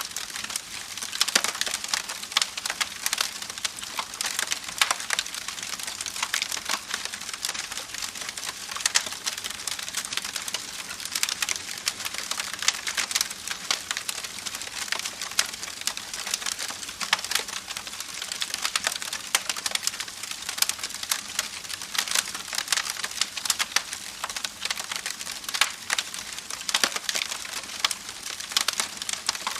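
Wood fire crackling steadily, with many small sharp pops and snaps over a soft hiss.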